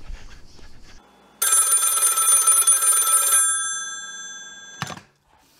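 Bell of an old black rotary desk telephone ringing once for about two seconds, its tones dying away for over a second afterwards, then a single clunk near the end.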